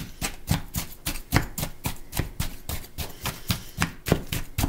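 Spoon stirring partly frozen peach slices in a plastic tub, knocking and scraping against the container in a steady rhythm of about four strokes a second.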